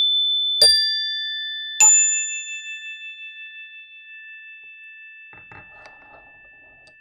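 Metal chimes struck twice, each strike a clear high note of a different pitch that rings on and fades slowly over the tones of an earlier strike. Faint rustling near the end.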